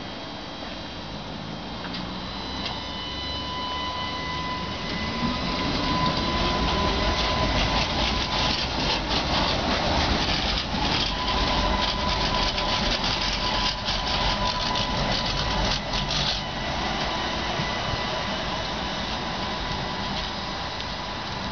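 Two coupled Tatra T5C5 trams pulling away from a stop and passing close by: the traction motors' whine rises in pitch as they accelerate, followed by a rapid clatter of wheels on the rails that drops off suddenly about three quarters of the way through as the trams move away.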